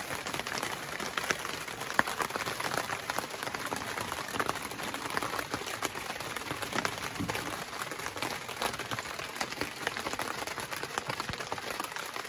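Steady rain pattering on a boat's canvas top, a dense crackle of many small drops.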